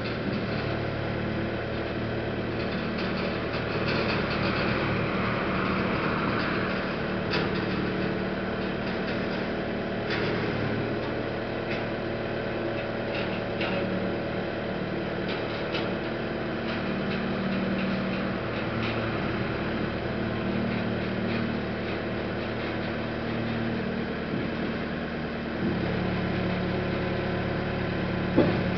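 Manitou MRT 2145 rotating telehandler's diesel engine running steadily while its hydraulic boom is lowered. The engine hum gets louder about three seconds before the end, and there is a single sharp click just before the end.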